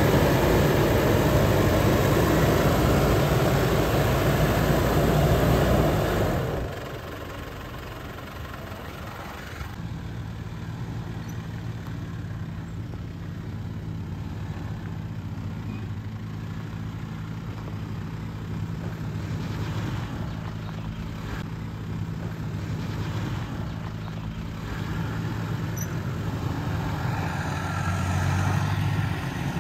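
Toyota Prado 150's engine running steadily under load as it crawls up a rutted dirt climb with its rear locker engaged and traction control on, a little louder near the end. For about the first six seconds a loud rushing noise close to the vehicle drowns it out.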